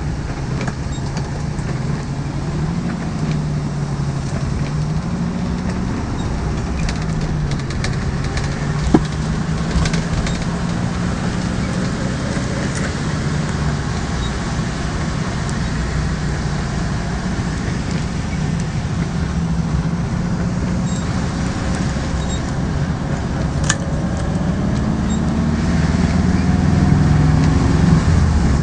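Volkswagen Beetle's air-cooled 1600 flat-four engine running as the car drives, heard from inside the cabin, its pitch rising and falling several times, over a steady hiss of tyres on wet pavement. A couple of sharp clicks stand out, one about nine seconds in and another near the end.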